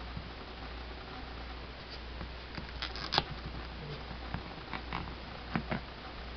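Small clicks, taps and light rustling as hands handle an electronic cigarette kit's cardboard box and its parts, with the sharpest click about three seconds in and two quick taps near the end, over a low steady hum.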